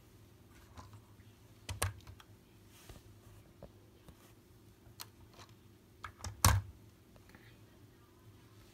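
Scattered sharp clicks and knocks over a faint low hum: a pair just before two seconds in, a single click at about five seconds, and a cluster around six seconds ending in the loudest knock.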